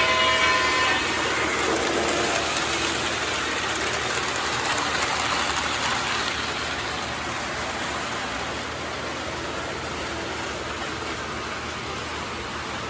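O gauge model train rolling past on three-rail track: a steady rushing rumble of metal wheels and motors, easing a little toward the end. A few steady tones sound in the first second and fade out.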